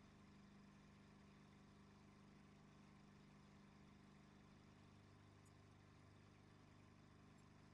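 Very faint, steady drone of the Viking Dragonfly's engine, heard from inside the cockpit as the plane climbs out after takeoff.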